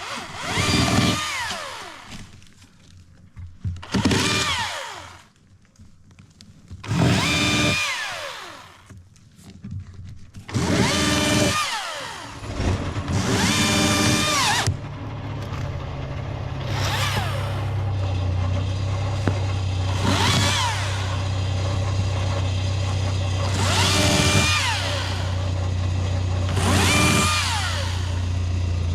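Electric chainsaw run in short bursts, about nine times: each a motor whine that spins up quickly, holds a steady pitch, then winds down. About 12 seconds in, a steady low drone starts and runs on under the later bursts.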